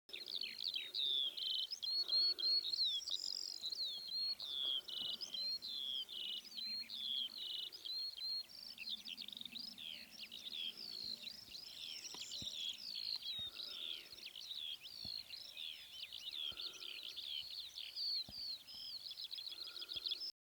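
A songbird singing a long, unbroken song of rapid, varied high notes mixed with short harsh phrases.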